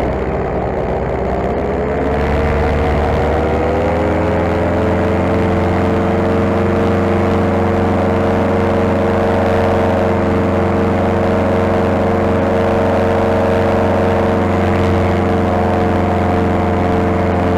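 Paramotor engine and propeller running under power, the pitch rising over the first few seconds as it revs up, then holding steady.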